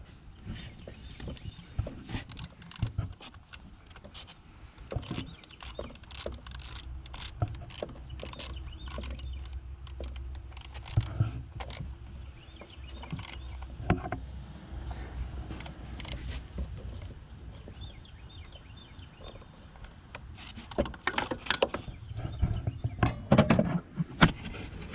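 Irregular clicks, knocks and light metallic clatter from hand tools and engine parts being handled during spark plug work, over a low rumble.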